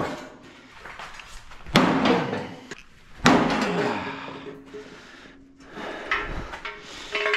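Heavy hammer blows on a brass statue: two hard metallic strikes about a second and a half apart, each ringing on as it fades, then lighter knocks near the end.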